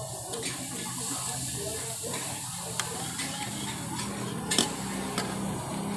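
Food frying in a pan: a steady sizzling hiss, with a few sharp clicks, the loudest about four and a half seconds in.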